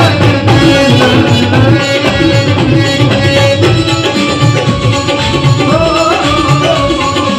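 Live Punjabi devotional song: tabla keeping a rhythm under a harmonium, with a male singer holding long notes that slide in pitch, most clearly in the second half.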